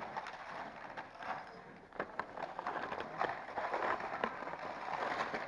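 Snowshoe footsteps crunching on packed snow and ice, an irregular run of crunches that grows denser in the second half.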